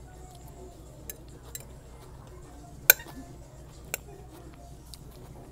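A metal fork clinking against a plate while eating: a few light clicks, then one sharp, louder clink about three seconds in and another about a second later, over a steady low background hum.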